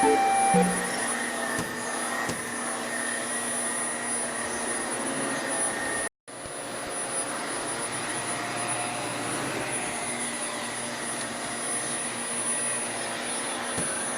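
Vacuum cleaner running steadily, its noise cut off once for a moment about six seconds in before it resumes.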